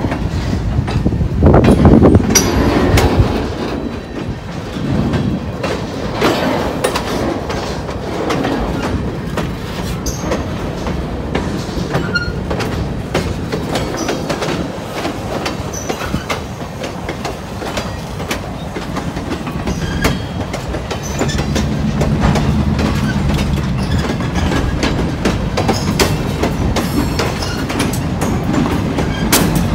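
Freight cars rolling slowly past, their steel wheels clicking and clanking over rail joints with occasional squeals. From about two-thirds of the way in, a low steady drone joins the rumble.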